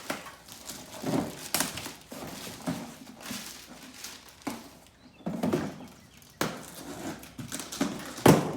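Rustling, knocking and thudding as a planer's parts kit is opened and its small parts and tools are handled, with a sharp knock near the end.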